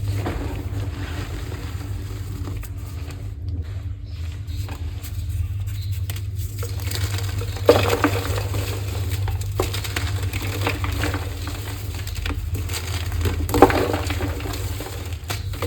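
Block of gym chalk being crushed and crumbled, with a run of small crackling crunches and two louder crunches about halfway and near the end, over a steady low hum.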